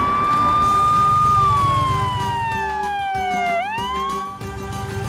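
Ambulance siren wailing: the pitch rises, holds, falls slowly, then sweeps quickly back up about three and a half seconds in.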